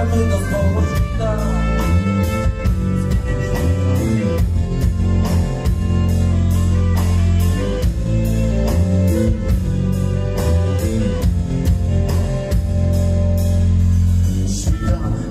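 Live rock band playing an instrumental passage: a drum kit keeping a steady beat over bass guitar and electric guitar.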